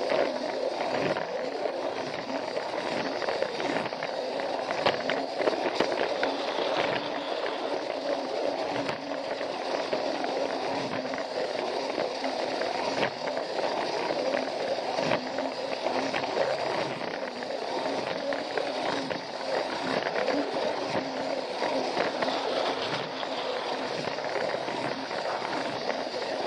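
Battery-powered Plarail toy train running along plastic track: its small motor whirs steadily, with frequent clicks and rattles from the wheels rolling over the track.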